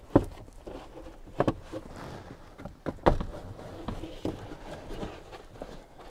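Thick car floor carpet being pulled back and folded over the floor pan: a rustling scuff with a few sharp knocks, the loudest about three seconds in.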